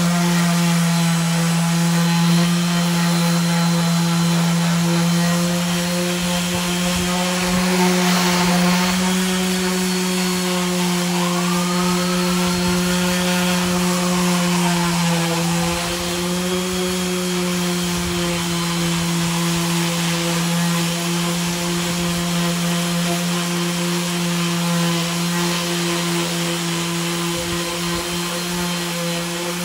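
Makita random orbital sander running steadily, fitted with 80-grit sandpaper, sanding a wooden tabletop and the dried wood filler along its edges. It holds one even hum, a little lower about halfway through.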